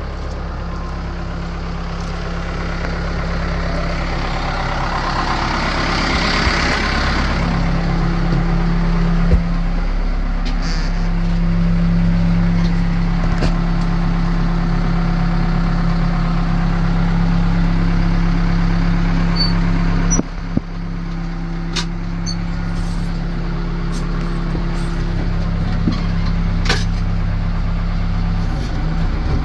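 Case 580 Super L backhoe's four-cylinder diesel engine running steadily, its note stepping up and down several times as the load changes, with a few sharp knocks and clanks.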